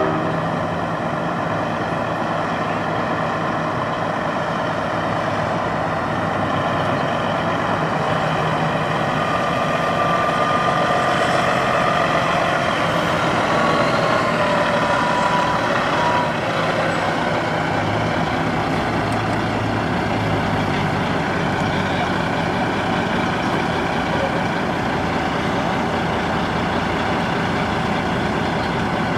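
Diesel engine of a conventional semi tractor running steadily as the truck rolls slowly past at low speed and then sits idling.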